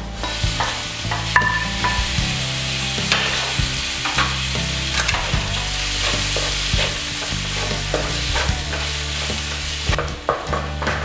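Chopped tomatoes hitting hot oil and fried onions in a steel kadai, sizzling hard, while a wooden spatula stirs and scrapes against the pan with scattered clicks. The sizzle starts as the tomatoes go in and drops away near the end.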